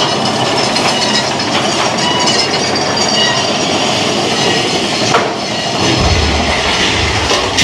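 Big Thunder Mountain Railroad mine-train roller coaster running along its track at speed: steady wheel rattle and clatter with faint high squealing, and a deeper rumble setting in about six seconds in.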